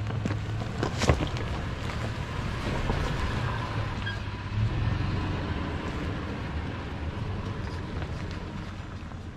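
Toyota FJ Cruiser's 4.0-litre V6 running at low revs as the 4x4 crawls past in low range, its tyres crunching over rock and gravel, with a sharp crack about a second in. The sound fades as it drives away.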